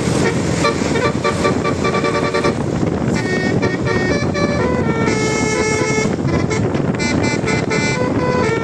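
Bus telolet horn: a set of horns playing short melodies of changing notes, in repeated bursts over a steady rumble of engine and street noise.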